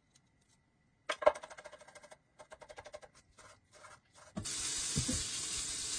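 A knife chopping quickly on a wooden cutting board, starting with a sharp knock about a second in. About four seconds in, bacon starts sizzling in a hot frying pan with a steady hiss.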